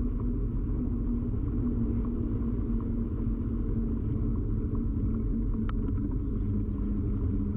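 Steady ride noise from a bicycle, picked up through a camera mounted on the bike's frame: tyre and road vibration rumbling with a low hum, faint light ticks, and one sharp click near the end.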